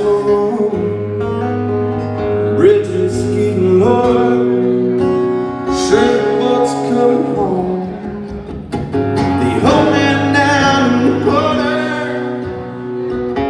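Acoustic guitar playing steadily under a man singing the opening of the song, his voice gliding between held notes.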